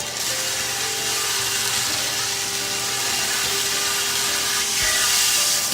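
BESTEK Pro-Cyclone cordless handheld vacuum cleaner running steadily: a motor hum under a loud hiss of rushing air.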